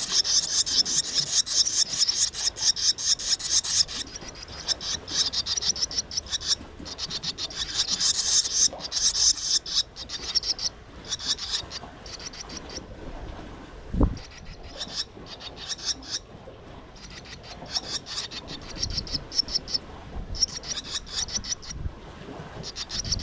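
Swallow nestlings begging: repeated bursts of rapid, raspy high-pitched calls, strongest over the first few seconds and weaker afterwards, with one low thump about fourteen seconds in.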